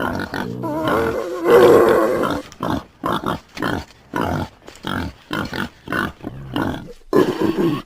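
Pig grunting: a longer call about a second and a half in, then a quick run of short grunts, two or three a second.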